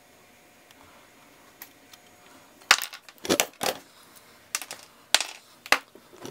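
A quiet workbench, then from about three seconds in a run of about eight sharp clicks and knocks as tools, wires and parts are handled and set down on the bench.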